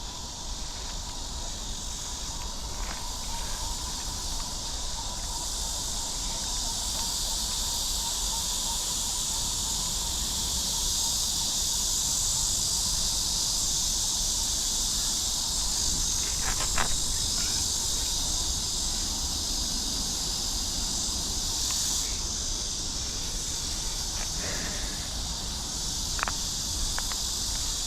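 Steady, high-pitched chorus of insects, swelling a little partway through, with a couple of faint clicks.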